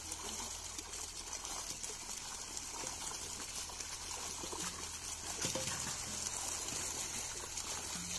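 Water trickling and splashing steadily, with a steady low hum underneath.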